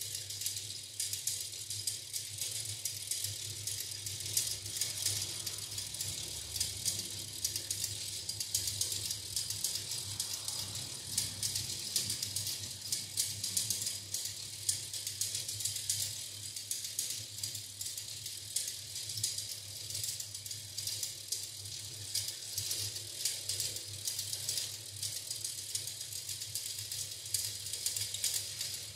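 3D-printed plastic Theo Jansen strandbeest linkage cycling, its many plastic joints and crank clicking and rattling in a fast, steady stream, over a low steady hum.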